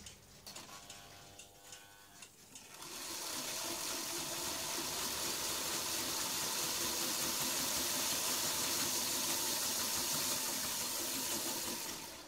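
Model V 200 diesel locomotive with two electric motors running under load as it pulls against a force-measuring scale. A faint whine at first, then from about three seconds in a loud, steady rushing motor noise that fades near the end as the power is turned down.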